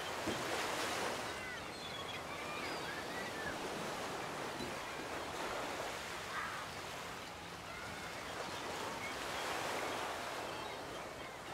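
Ocean surf washing onto a beach: a steady rush of water that swells about a second in and again near the end as waves break and run up the sand. A few short high chirps sound over it.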